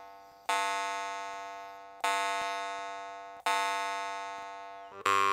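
Plehanov drymba, a steel jaw harp, plucked singly three times, each note ringing out and slowly dying away, a test of its bell ring, which sounds clean. Near the end it is plucked quickly over and over, with the overtones shifting as the mouth changes shape.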